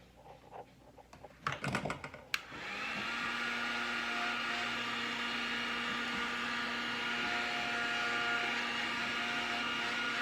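Handling rustle and clicks, then a click as a heat gun switches on about two seconds in. It spins up within half a second and runs with a steady blowing hiss and whine, shrinking heat-shrink tubing over the repaired wire connections.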